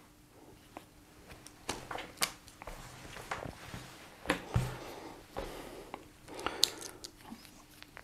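Leatherman Raptor-style rescue shears snipping and crunching through thick denim, with irregular sharp clicks of the blades closing.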